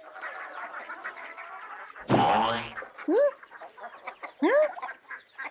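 Ducks quacking over the din of a flock: one loud, harsh quack about two seconds in, followed by a few shorter calls.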